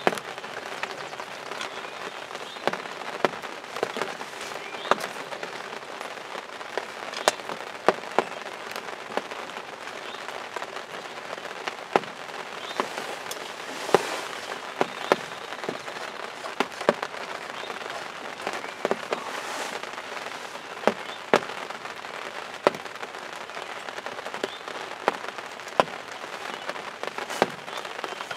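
Steady rain falling on a hunting ground blind: an even hiss with large drops tapping sharply and irregularly on the blind's fabric.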